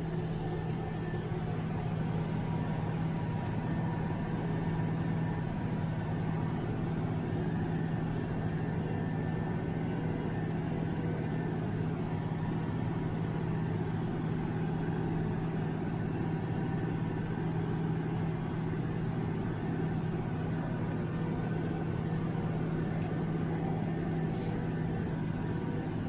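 Engine of a 540-horsepower Case IH Steiger tractor running steadily under load while pulling a 26-foot disc tillage tool, heard from inside the cab as an even low hum.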